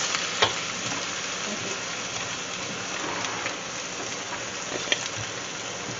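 Ground beef with onion and green pepper sizzling in a stainless steel skillet, a steady frying hiss, with a couple of sharp clicks from the wooden spoon against the pan, one just under half a second in and one near the end.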